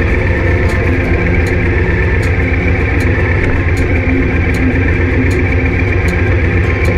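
Motorcycle engine running steadily at low road speed, heard from a camera on the bike, with a light click repeating about every three-quarters of a second.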